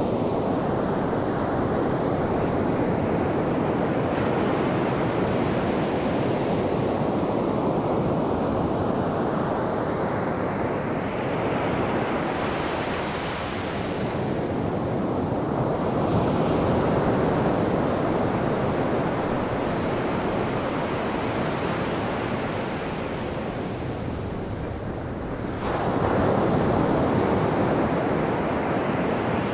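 Atlantic surf: waves breaking and washing up the sand in a continuous rush that swells and eases, with a fresh wave breaking louder near the end.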